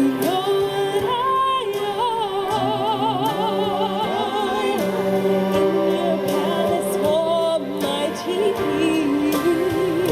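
A solo singer holding and gliding between notes with wide vibrato, without clear words, over sustained backing music.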